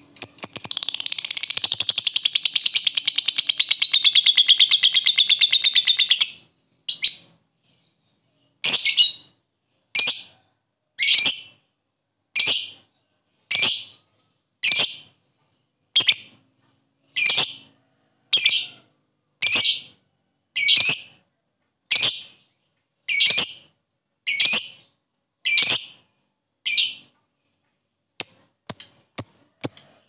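A lovebird giving a long, rapid chattering trill (the 'ngekek' call) for about six seconds. It then gives a series of single sharp, high calls about one a second, which come quicker and shorter near the end.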